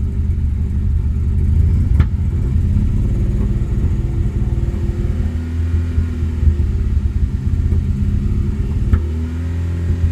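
2013 Cadillac ATS 2.0-litre turbo four-cylinder engine running, a low uneven rumble with two sharp clicks, about two and nine seconds in. The engine misfires and runs rough while its high-pressure fuel pump holds rail pressure near 116 psi instead of the hundreds expected, which the mechanic puts down to a bad high-pressure fuel pump or a lying pressure sensor.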